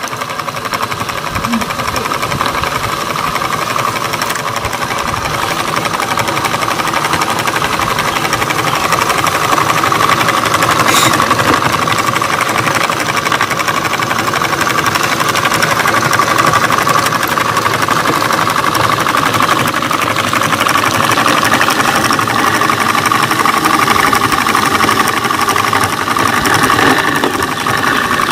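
Homemade model single-cylinder engine running steadily: a syringe piston worked by a crank from a ball-bearing wheel, belt-linked to a small DC motor. It makes a fast, even rattle with a steady whine.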